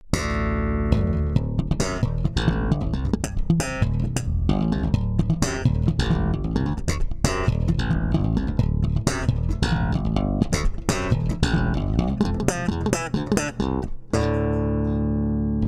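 Electric bass guitar played solo through a Vintronix LA-2A tube compressor: a fast run of plucked notes with sharp attacks, ending about 14 seconds in on one long sustained note that rings out.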